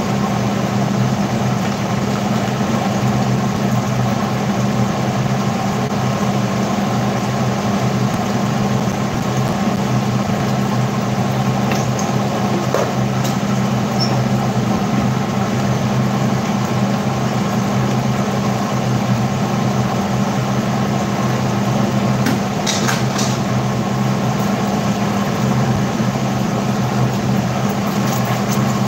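Steady low machine hum from a running kitchen appliance, with a light hiss over it. A few faint clicks come about twelve seconds in and again around twenty-three seconds.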